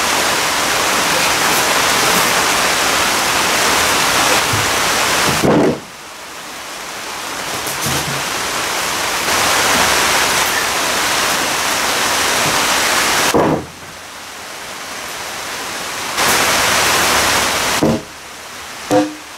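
Hand-held power tool abrading a laminated wood keel, cleaning off dried glue squeeze-out: a loud, steady hiss that cuts off suddenly twice and builds back up.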